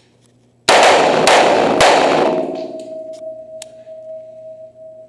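Three AR-15 rifle shots in quick succession, about half a second apart, with heavy echo off the walls of an indoor range, followed by a steady ringing tone.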